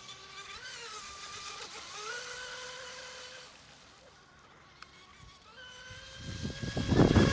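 Electric RC race boat's brushless motor whining at speed, its pitch wavering and rising as the boat runs, fading for a moment in the middle. Near the end a loud rushing noise swells up.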